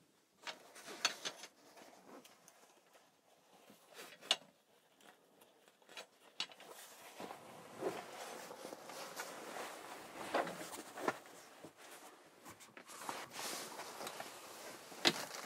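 Metal support poles of a Cabbunk fabric bunk bed being pulled out and handled, with sharp clicks and taps, followed by the fabric bed being bunched up and folded with rustling and a sharp knock near the end.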